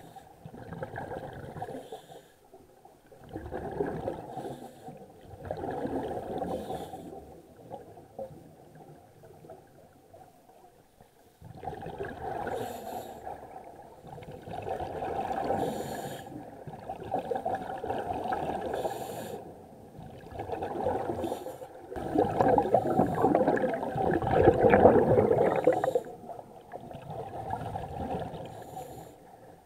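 Scuba diver breathing through a regulator underwater: bursts of exhaled bubbles gurgling every couple of seconds. There is a quieter stretch about a third of the way in, and the loudest, longest burst comes near the end.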